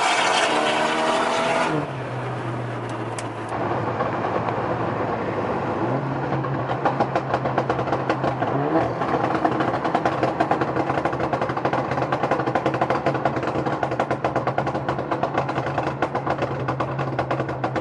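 Tuned four-cylinder Alfa Romeo Giulia engine, heard from inside the cabin, pulling hard with its pitch climbing, then lifting off about two seconds in. It then cruises at a steady pitch while the exhaust crackles and pops on the overrun in a rapid irregular string from about six seconds on, the popping that its ProjectA tune is meant to give.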